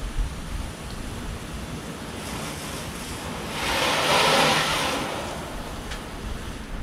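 Garden hose spray hitting a car's body and paintwork, a steady hiss of water that swells louder for a second or two in the middle.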